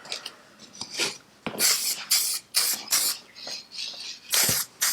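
Aerosol can of wheel silver paint spraying in a series of short hissing bursts, about seven, for a light dusting coat.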